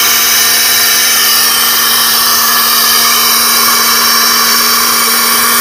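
Air-driven pilot ladder winch running: the pneumatic motor turns the winch through its gearbox with a loud steady hiss of air and a steady hum under it, lowering the combination ladder.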